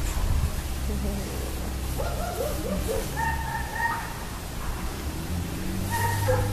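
German Shepherd dog whining: short squeaky whimpers about two seconds in, then a held high whine about three seconds in and another near the end, over a low steady rumble.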